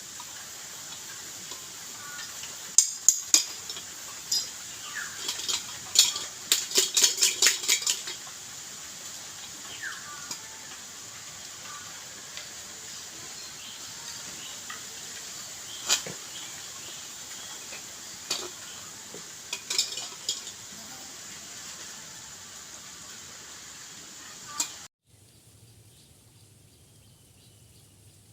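Scattered sharp clinks and clatter, with a quick run of clicks about six to eight seconds in, over a steady high hiss that drops away about 25 seconds in.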